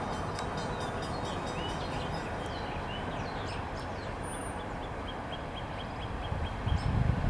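Amtrak passenger train approaching with a steady low rumble that grows louder near the end. Birds chirp rapidly over it, with a few falling calls.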